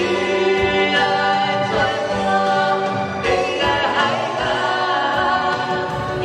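A man and a woman singing a duet together into handheld microphones, with long held notes over musical accompaniment.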